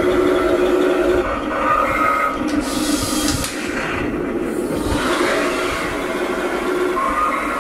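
Heng Long King Tiger RC tank's electronic sound unit playing a simulated tank engine running through its small speaker, with short whines from the turret traverse as the turret turns.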